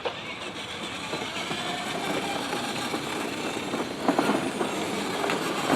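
Battery-powered ride-on toy car driving, a steady whir of its electric motor and plastic wheels rolling over the ground, slowly growing louder.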